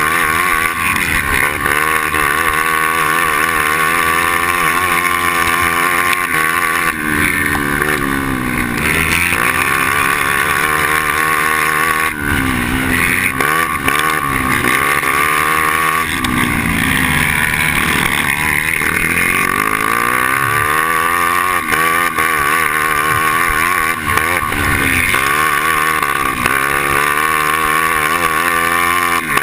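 Onboard sound of a two-stroke racing kart engine at race pace, its pitch climbing on the straights and dropping then climbing again several times as the kart slows for corners.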